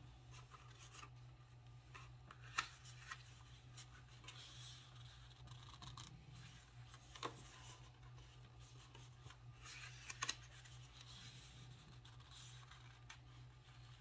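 Cardstock being creased along its score lines and handled: faint rubbing and scraping of paper, with a few sharp taps, over a steady low hum.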